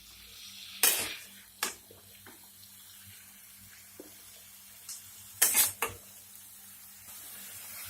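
Metal spoon clinking and scraping against a cooking pot as marinated mutton is stirred in hot oil, a handful of sharp clinks over a faint sizzle.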